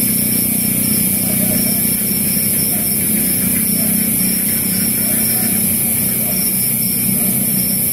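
Pork adobo cooking in a pan on a portable butane gas stove: a steady hiss over a low hum, with a high chirp pulsing about every half second.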